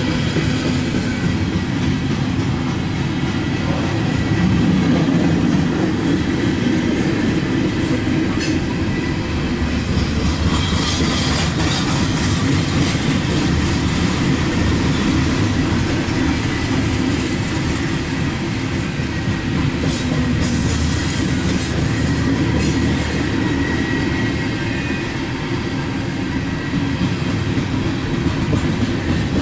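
Cars of a loaded coal train rolling past steadily: a continuous rumble and clatter of steel wheels on the rails. A few brief high-pitched wheel squeals come about 8 to 12 seconds in and again about 20 seconds in.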